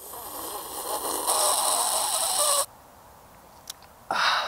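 Tea being poured from a porcelain teapot into a cup, a loud splashing pour that builds and stops abruptly after about two and a half seconds. About four seconds in comes a short slurping sip from the cup.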